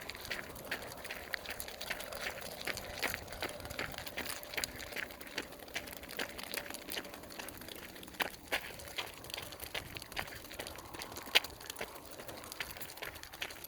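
Quick, irregular light taps and crackles, several a second, of a KuneKune piglet's trotters as it runs, with one sharper tap a little after eleven seconds in.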